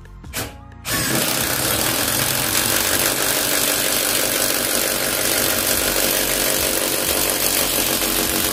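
Stanley 18V brushless impact driver hammering continuously as it drives a long screw into stacked timber, starting about a second in and still going at the end. The hex bit is slightly bent, which makes the driving wobble.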